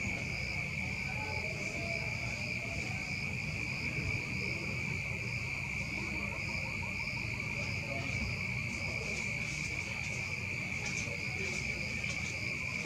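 Crickets chirring at night: one steady, unbroken high trill, with a fainter, evenly pulsing chirp higher above it, over a low background rumble.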